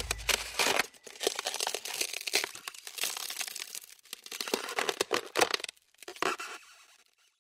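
Crackling and crunching sound effect: many irregular snaps, dense at first, then sparser, fading out near the end. The low bass of the music dies away just at the start.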